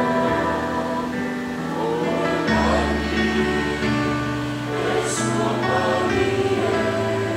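A slow hymn sung by a group of voices with instrumental accompaniment, long notes held and changing every second or so.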